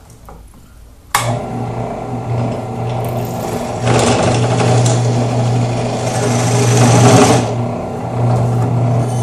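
Benchtop drill press switched on about a second in, its motor running with a steady hum. From about four seconds in, a louder rasping cut lasts some three seconds as the spinning step bit is pressed into the aluminium plate, shaving the burr off the edge of a drilled hole.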